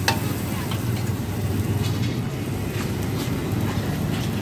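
Steady low rush of a gas wok burner at full flame, with a few sharp clicks of a metal spatula against the wok.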